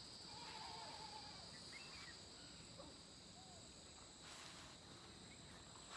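Faint rural ambience: a steady high-pitched insect drone of crickets or cicadas, with a few short faint bird chirps.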